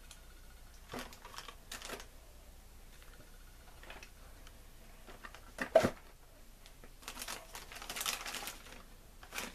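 Soul of Chogokin Voltron lion figures being handled: scattered light clicks and knocks as they are lifted and set down on a styrofoam tray, the loudest knock a little past halfway. A rustle of plastic wrapping follows.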